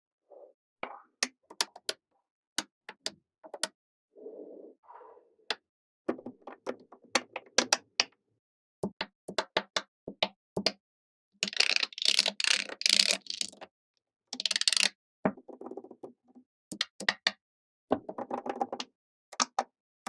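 Small magnetic balls clicking together as they are snapped into place: sharp single clicks in quick, uneven runs. Between about eleven and fifteen seconds in, a denser, louder rattling clatter of many balls.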